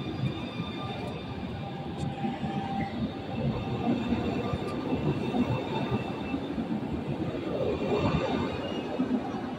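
Electric passenger train pulling out of the station and passing close by: a steady rumble of wheels on the rails with a thin whine from the traction equipment, swelling briefly about eight seconds in.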